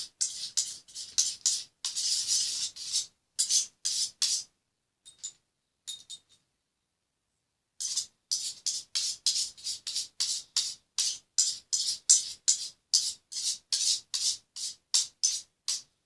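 Homemade glue-and-detergent slime squeezed and pulled by hand: quick sticky crackling and squelching bursts several times a second, stopping for about a second and a half in the middle.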